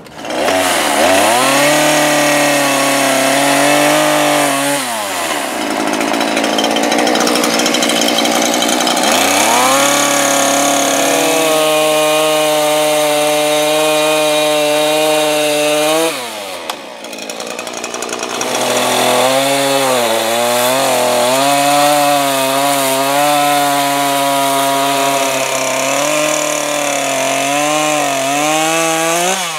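Small two-stroke Stihl MS150 chainsaw cutting wood. It is revved to full throttle three times and held there, and drops back to idle between the cuts, about 5 and 16 seconds in. In the last cut the engine pitch wavers up and down.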